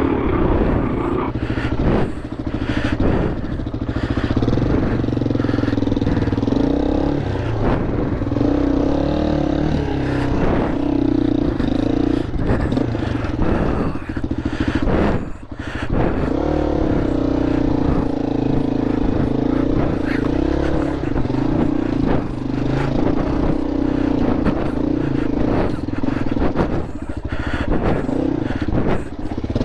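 Dirt bike's single-cylinder four-stroke engine running, its pitch rising and falling with the throttle, with a brief drop about halfway through.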